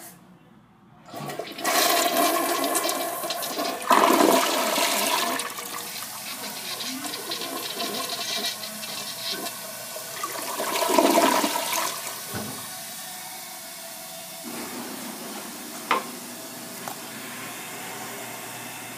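1996 Crane Plumbing Hymont tank toilet flushing: water rushes into the bowl about a second in, swells again about ten seconds in, then drains down. A sharp click follows near the end, then a steady hiss as the tank refills.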